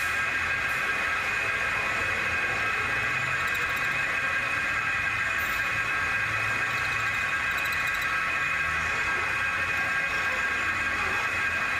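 Metal lathe running steadily with a constant high-pitched whine.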